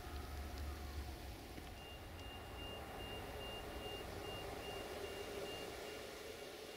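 Electronic warning beeper sounding a steady high beep about two and a half times a second, starting about two seconds in, over a low rumble that fades after the first second and background noise.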